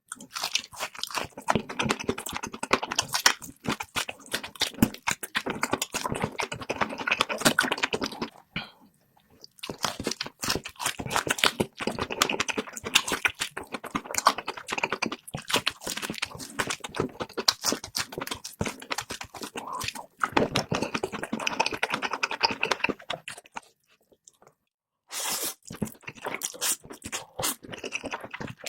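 Close-miked eating sounds played at double speed: rapid crunching and chewing of food, broken by two short pauses.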